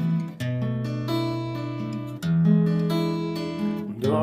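Steel-string acoustic guitar fingerpicked: single bass notes and chord tones plucked one after another, letting the notes ring over each other as the chord shapes change. Just before the end a short upward slide in pitch is heard.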